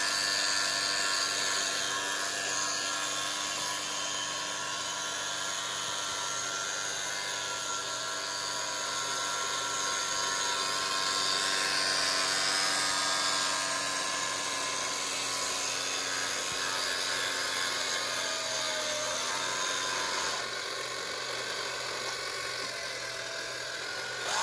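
Small electric motors of two radio-controlled model boats whining steadily as the boats run across the water, the pitch shifting slightly about twenty seconds in.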